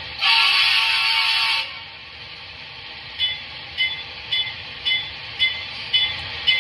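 Sound decoder of an HO scale Union Pacific GTEL 8500 hp turbine model playing a locomotive horn blast lasting about a second and a half. Then, from about halfway through, a locomotive bell rings about twice a second.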